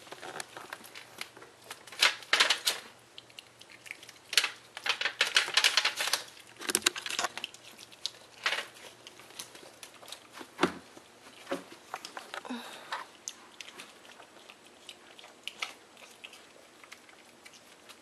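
Wild piglet rooting with its snout through dry shredded bedding, making irregular bursts of crinkling rustle, densest in the first half and sparser later.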